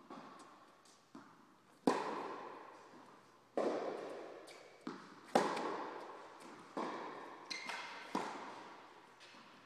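Tennis ball struck by rackets and bouncing on the court during a rally: sharp pops every second or so, each trailing a long echo in the large hall.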